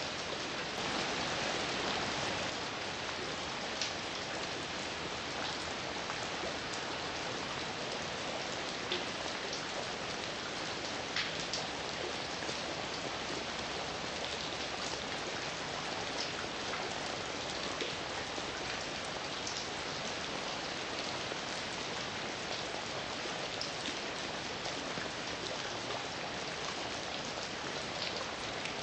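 Heavy rain falling steadily, a dense even hiss with individual drops striking a surface here and there.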